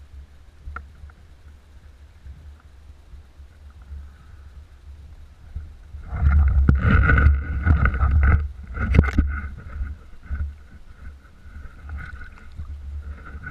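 Water sloshing and splashing against an inflatable kayak at the camera, over a steady low rumble. From about six seconds in it turns loud and rough, with several sharp knocks for a few seconds, then settles back to softer splashing.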